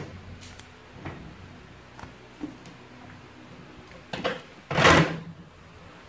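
A plastic top-loading washing machine being moved by hand across a tiled floor: a few light clicks and knocks, then a thud and a louder half-second scrape near the end.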